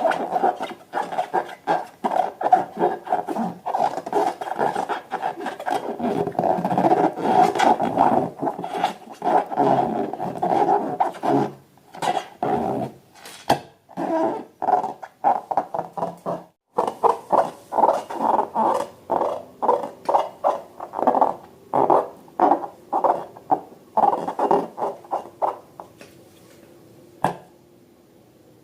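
Rubber balloon squeaking as it is rubbed and squeezed by hand, in rapid strokes that turn into slower, separate squeaks and stop a little before the end.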